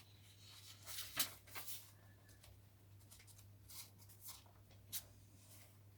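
Paper pages and cards of a handmade junk journal being turned and handled: a few soft rustles and light taps, over a steady low hum.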